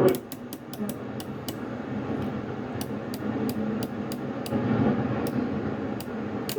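CB radio receiver hissing with static, with faint, unreadable voices buried in the noise, and a string of sharp clicks every few tenths of a second.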